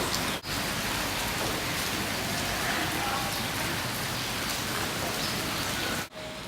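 Steady rain falling on hard surfaces, an even hiss of drops, broken by two brief dropouts: one under half a second in and one near the end.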